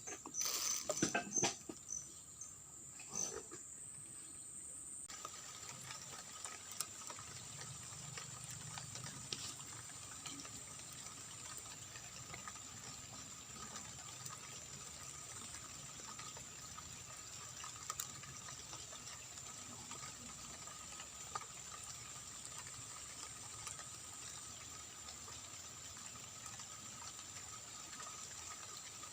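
Faint, steady outdoor ambience: an even hiss with two steady high-pitched tones, with a few clicks and knocks in the first couple of seconds.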